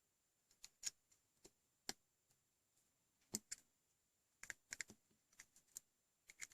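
Faint, irregular small clicks and taps of USB-C cable plugs being handled and pushed into the sockets of a cable tester board, with a quick cluster of clicks past the middle.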